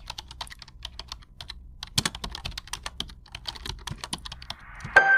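Rapid, irregular clicking of typing on a keyboard, several keystrokes a second. Right at the end, music with clear piano-like notes comes in.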